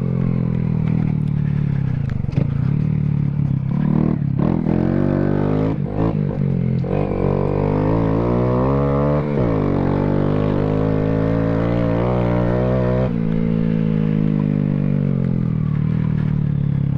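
Honda Grom's 125cc single-cylinder four-stroke engine and exhaust running under way on a dirt field. The pitch rises and falls with the throttle through the middle, with a few brief knocks early on, then holds steady near the end.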